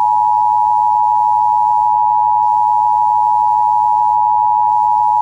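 Emergency Alert System attention signal: the standard two-tone alarm, two steady pitches sounding together without a break, announcing that an emergency alert message follows.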